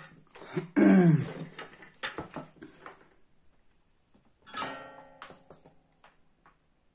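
Clicks and rustles of a water-purifier circuit board and its wires being handled and turned over on a wooden bench. About a second in there is a loud, short voice-like sound falling in pitch, and a shorter pitched sound follows a few seconds later.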